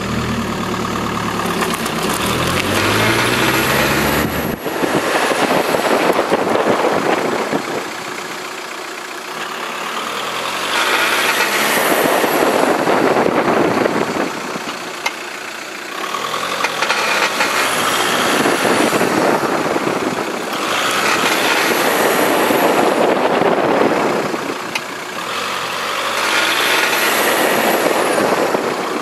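Volkswagen Golf Mk4 creaking and grinding from the front end while turning slowly to the right, in about five long bouts a few seconds apart, over the engine running.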